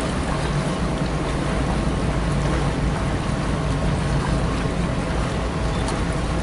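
Gusty wind buffeting the microphone, a steady low rumble and rush over the harbour, with a faint steady hum underneath.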